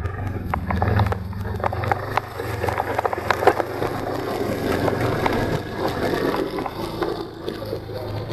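Snowmobile engine running with a steady low drone while the sled rides over snow, with frequent knocks and rattles throughout, the loudest about three and a half seconds in.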